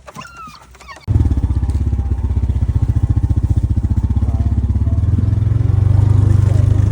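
A motor vehicle engine comes in suddenly about a second in and keeps running with a rapid, even pulsing, growing a little louder near the end.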